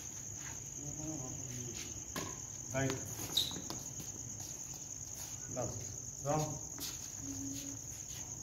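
Crickets chirping in a steady, high, continuous trill. Now and then a sharp hit cuts through it, the racquet striking the shuttlecock, loudest about three and a half seconds in.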